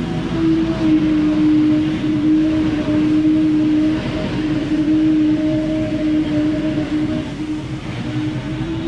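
Ferris FB2000 Hurricane stand-on leaf blower running at steady high speed, its engine and fan making a loud, even drone.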